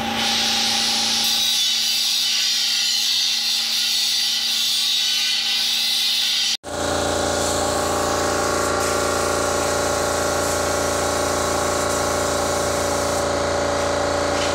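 Compressed-air spray gun hissing steadily as it sprays the counter finish for about six and a half seconds, then an abrupt cut to a steady electric motor hum from the 2-horsepower air compressor that feeds it.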